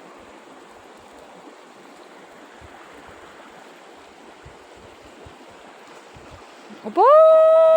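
Steady rush of flowing water. Near the end a person's voice breaks in with a loud, long drawn-out held tone.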